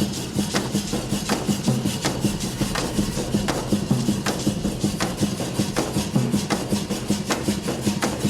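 Instrumental tribal percussion jam: a quick, steady beat of rasping, clicking percussion strokes over a low pulsing tone.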